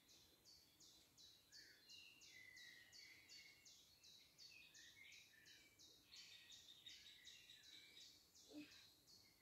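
Faint birdsong: a bird repeating a high note about three times a second, with scattered lower chirps from other birds, and a soft knock near the end.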